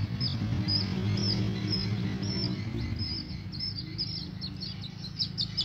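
A baby chicken chick peeping again and again, short high chirps that come faster toward the end.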